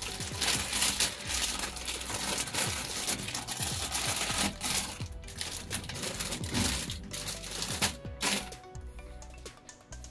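Plastic bread bag crinkling as hamburger buns are pulled open and taken out. The crinkling dies down near the end, with background music underneath.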